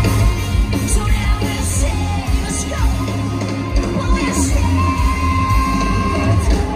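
Live heavy rock band playing loud, with heavy bass, sung and shouted vocals, and a long held note in the second half.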